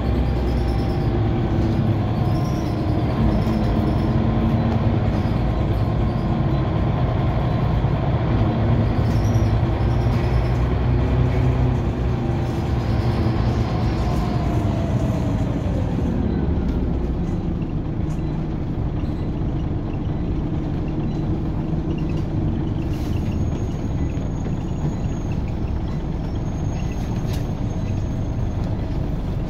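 Scania OmniCity single-deck bus heard from inside the saloon: the diesel engine runs under way with its pitch rising and falling, then drops away about halfway through as the bus slows, running low and steady after that. Two short high tones sound near the end.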